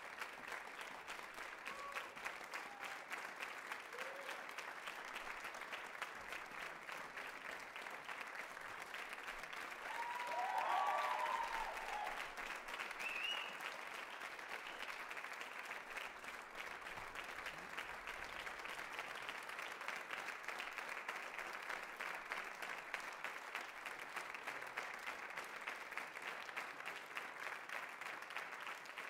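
Audience applauding steadily, with a brief cheer from a few voices about ten seconds in.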